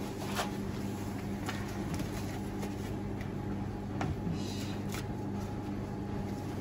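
A steady low electric hum with a few faint light ticks and rubbing, as a block of ski wax is pressed against a hot waxing iron and dripped onto a ski base.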